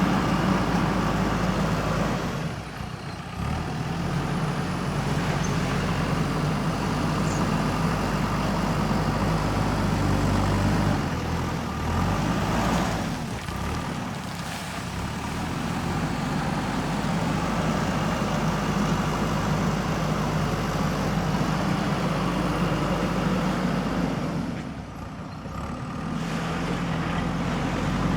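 JCB backhoe loader's diesel engine running steadily while working, its revs and loudness dropping briefly twice, a few seconds in and near the end.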